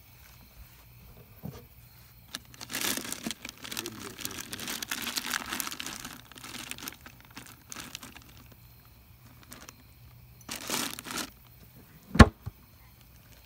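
Plastic bags and food containers in a cooler crinkling and rustling as someone rummages through it for several seconds, then again briefly. Near the end comes one sharp knock, the loudest sound.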